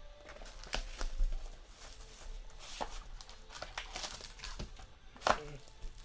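Plastic wrapping crinkling and tearing and cardboard rustling as a Plates & Patches football card pack is unwrapped and handled, with scattered clicks and one sharp knock about five seconds in.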